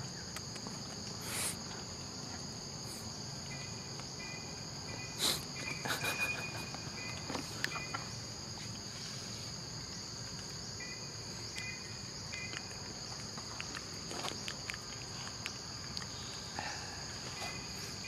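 Steady high-pitched insect drone, holding two constant shrill tones, with a few short faint chirps now and then and occasional soft taps.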